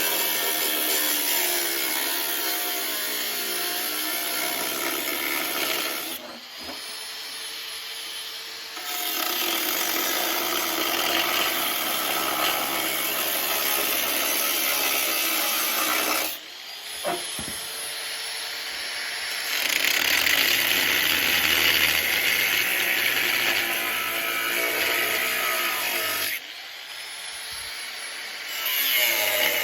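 A power tool cutting through a motorcycle's stock rear fender, its pitch wavering under load. It eases off to a quieter, freer running three times, about 6, 16 and 26 seconds in, before biting into the metal again.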